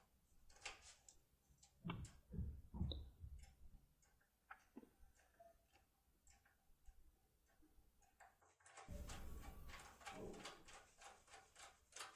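Faint, sparse metallic clicks and ticks of a Topolino decoder being worked in a Cisa Asix P8 lock cylinder, with a closer run of small clicks a little past the middle.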